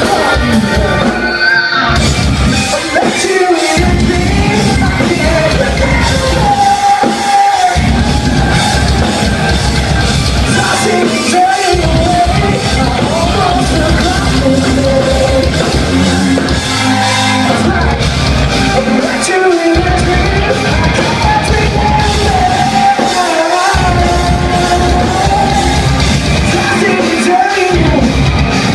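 Live rock band playing loud, with a singer holding long, wavering sung lines over the band.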